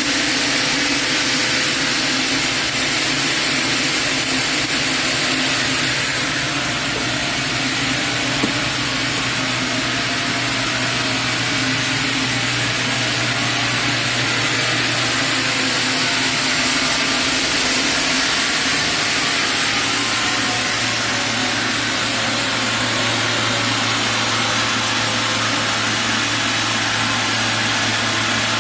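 Sawmill machinery running steadily with a continuous hum; the low tone shifts to a new steady pitch about two-thirds of the way through.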